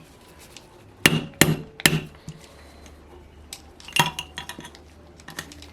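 Sharp metal-on-metal taps driving the rear bearing off an OS FS-20 model engine's crankshaft: three strong taps about a second in, another near the middle, and lighter ticks between them, each striking the bearing in a different spot so it comes off straight.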